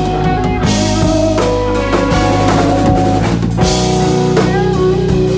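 Live rock band playing: two electric guitars and a bass guitar over a drum kit, with sustained guitar notes and steady drum and cymbal hits.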